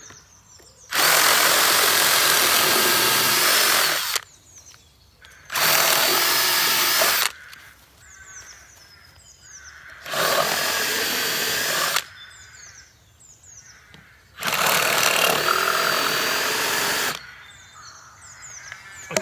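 Cordless drill boring through an old, rotten wooden bench plank in four runs of about two to three seconds each, stopping between holes. Birds chirp in the pauses.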